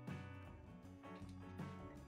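Quiet background music.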